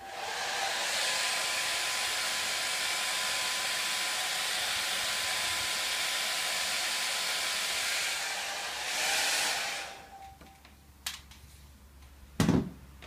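Hand-held hair dryer running steadily with a faint whine, rising briefly just before it is switched off about ten seconds in. A few sharp knocks follow near the end.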